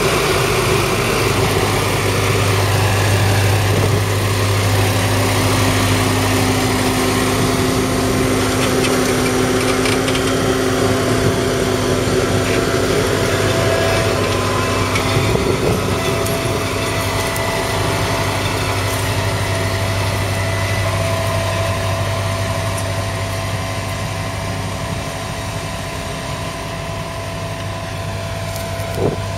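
Kubota M7171 Premium KVT tractor's 6.1-litre four-cylinder diesel engine running steadily under load while pulling a reversible plough through the soil. It grows somewhat fainter toward the end as the tractor draws away.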